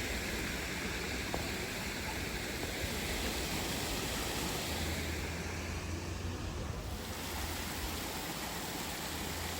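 Steady rush of falling water, an even splashing hiss with no breaks.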